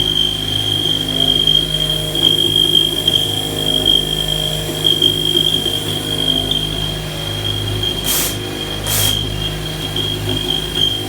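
CNC milling machine running with a steady high spindle whine and a low machine hum, thread-milling an M24 metric thread. Two short bursts of noise come about eight and nine seconds in.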